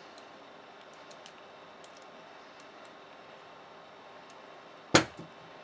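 Faint scattered ticks of a small Allen key working a Loctite-locked bolt in a brushless motor's bottom mount, then one sharp, loud click about five seconds in.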